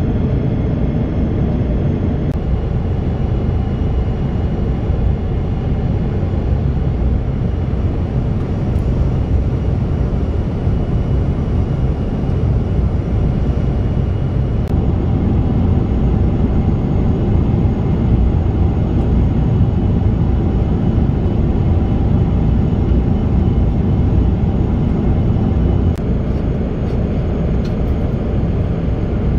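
Steady cabin noise of a Boeing 777-300ER in cruise: an even, low roar of airflow and engines.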